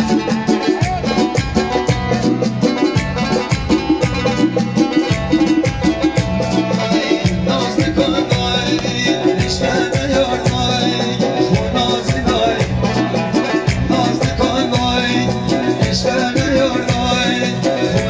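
Live Lori folk music played on an electronic arranger keyboard, a melody over a fast, steady drum rhythm, with a man singing into a microphone over it in the second half.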